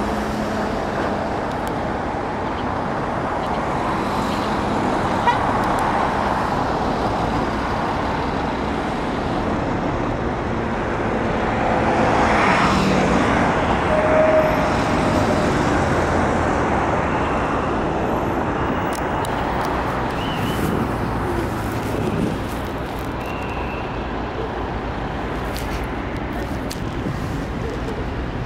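Steady city road traffic, a continuous rumble and hiss of cars, with one vehicle passing louder about halfway through.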